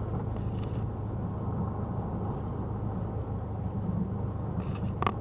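A Cessna 172's four-cylinder piston engine running steadily at low power while the plane taxis, with a brief click near the end.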